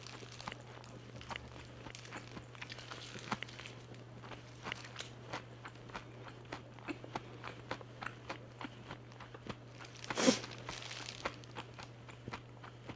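Close-up crunching and chewing of crispy fried chicken, a stream of short crackly bites with one much louder crunch about ten seconds in.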